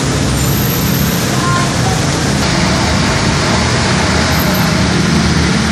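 Steady, loud rushing noise of a roadside fried-rice cart: the gas burner under the wok and rice frying in it, with passing road traffic.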